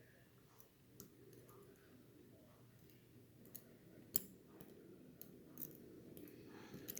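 Faint, scattered clicks of small metal lock pins and parts being handled on a work surface, with a sharper click about four seconds in.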